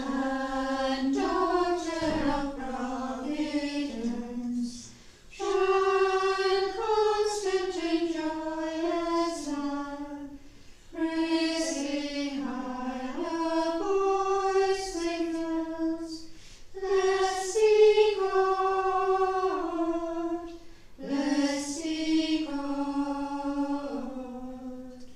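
A choir singing a hymn in five phrases, each a few seconds long, with short breaks between them and no instruments clearly heard.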